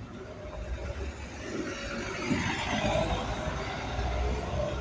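Irisbus Citelis city bus passing close by and pulling away, its engine running with a steady whine and tyre and road noise that swell about two seconds in.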